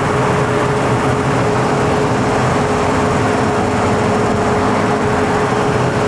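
New Holland farm tractor's diesel engine idling steadily, with a constant whine on top.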